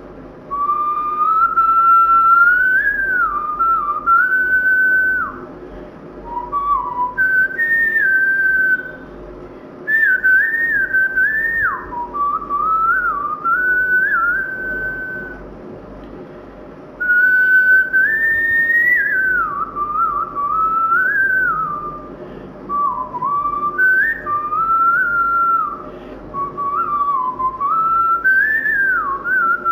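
A person whistling a Khmer song melody by mouth. It is a single clear gliding tune, played in phrases of several seconds with short pauses between them.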